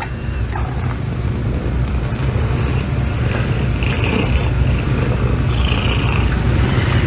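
Domestic cat purring loudly and steadily close to the microphone, a continuous low rumble with a few short breathy hisses over it.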